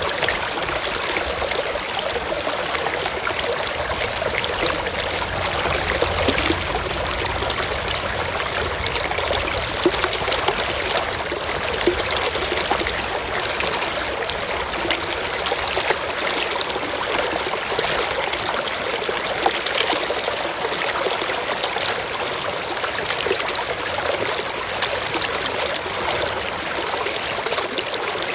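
Running water trickling and splashing in a steady, unbroken flow, like a small stream.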